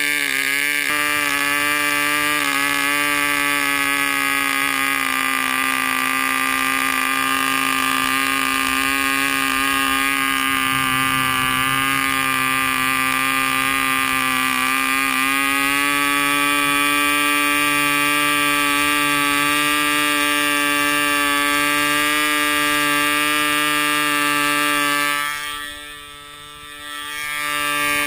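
RYTM 2.5 cc model diesel engine running flat out on a test stand with a steady, high-pitched buzz. Its pitch shifts a little near the start and again around the middle while the compression screw is turned. Near the end the sound goes briefly muffled and then comes back.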